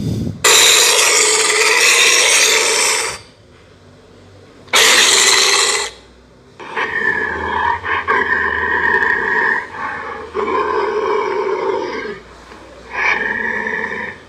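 Meat grinder running in stop-start stretches. First come two loud rasping bursts, one of about three seconds and one of about one second. Then comes a rougher, steady-pitched grinding that stops and starts several times.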